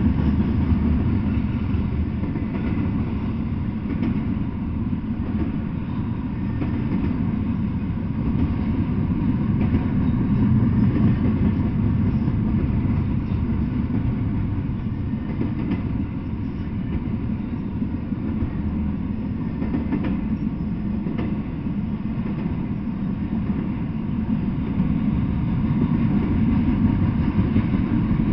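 Double-stack intermodal freight train rolling past: a steady low rumble of its well cars' steel wheels on the rails.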